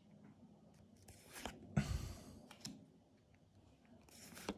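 Yu-Gi-Oh! trading cards being handled: a few short, soft rustles and clicks as cards are slid and flipped through a freshly opened booster pack.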